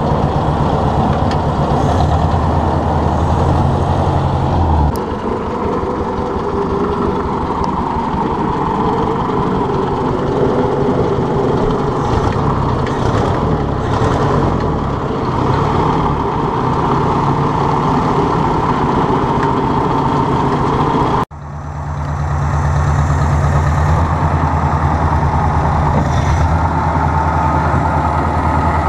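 Ford 600 tractor's four-cylinder engine running steadily on its first run after sitting for 20 years; the note changes about five seconds in. Just past two-thirds through the sound breaks off sharply and picks up again with the engine running.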